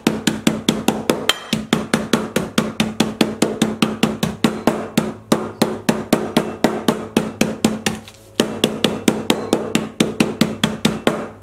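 Metal meat-tenderizer mallet pounding roasted peanuts inside a plastic freezer bag on a hard countertop, crushing them into coarse pieces. The blows come fast and even, about six a second, with a brief pause about eight seconds in.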